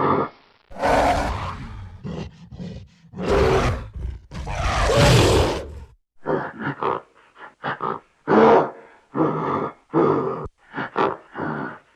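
Gorilla vocalizations: three long, rough calls in the first six seconds, each lasting one to two seconds, then a quick run of short calls.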